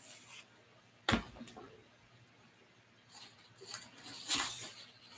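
A book set down with a single thump about a second in, followed by rustling and handling noises as things are moved about.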